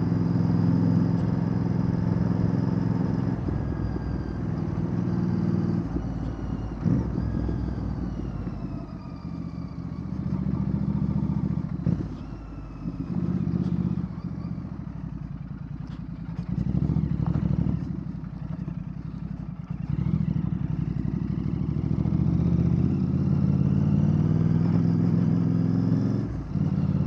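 Royal Enfield Bear 650's 648 cc parallel-twin engine running through a Red Rooster Performance aftermarket exhaust while riding. The revs rise and fall with the throttle, with brief drops near the middle and near the end.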